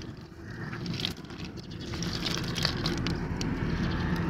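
Nylon fishing net being pulled and untangled over a heap of muddy catch on the ground: scattered small clicks and rustles, over a steady low background noise.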